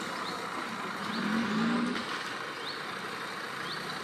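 Off-road 4x4 vehicle engine running, its note rising as it revs up about a second in, then easing off.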